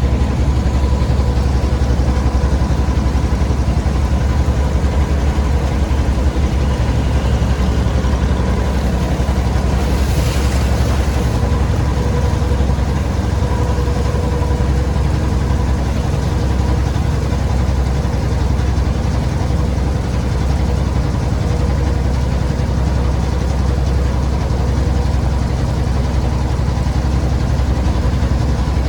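An engine running steadily at an even speed: a constant low drone with a steady hum over it.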